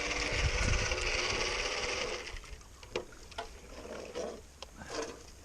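Small water pump running with water rushing, cutting out about two seconds in, followed by a few scattered light knocks and clicks.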